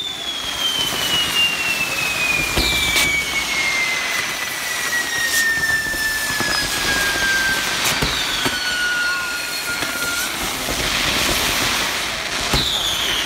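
Fireworks burning on a castillo (Mexican fireworks tower): a steady hiss with a long whistle whose pitch falls slowly for about ten seconds, several shorter falling whistles, and a few sharp cracks.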